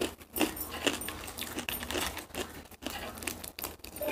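Metal bangle bracelets jangling and clinking on a moving wrist in an irregular run of small metallic clicks, with light handling rustles of paper packaging.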